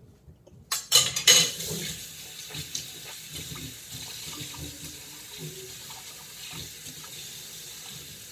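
Kitchen tap turned on about a second in, with a few knocks as it starts, then water running steadily into the sink.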